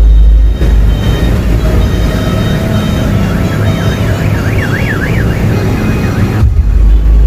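Truck-mounted 'horeg' sound system playing loud music. The deep bass drops out about half a second in, leaving a siren-like warbling tone that sweeps quickly up and down. The heavy bass comes back near the end.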